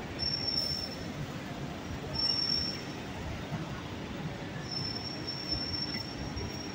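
Steel wheels squealing on rails: a thin, high-pitched squeal that comes three times, two short ones and then a longer one from about two-thirds of the way in, over a steady rumble of street traffic.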